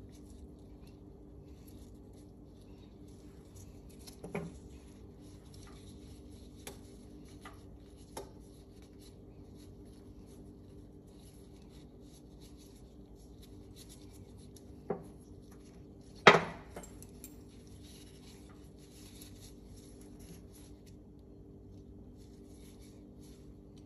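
Small steel parts of a disassembled Tanfoglio Stock 2 pistol being handled by gloved hands: faint rustling with a few scattered metal clicks, the loudest two coming close together past the middle, as the recoil spring and guide rod are taken apart and set down.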